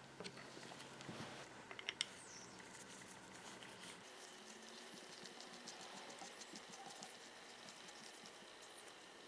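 Faint small metallic clicks of a screwdriver working a screw at the crank wheel of a PWWE10 two-speed hand drill, the loudest about two seconds in. Then, from about four seconds, faint fine ticking and scraping as the wooden side handle is screwed onto its threaded stud.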